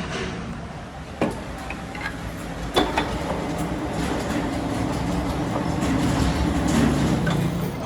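Steady running noise of workshop machinery with a low hum, broken by a few sharp knocks about a second in and twice near three seconds in.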